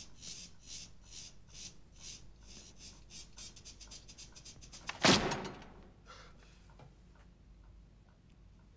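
Sound effect of a cockroach scuttling across paper: dry high ticks that speed up from about two a second to a rapid patter. About five seconds in comes a sudden loud hit that fades over about a second.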